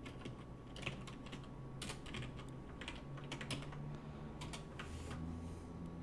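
Typing on a computer keyboard: quick, irregular keystroke clicks in short runs.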